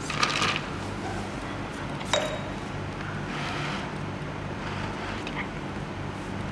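Water splashing in a plastic bucket as ice cubes are dropped in, with a sharp knock about two seconds in and softer splashes after, over a steady low hum.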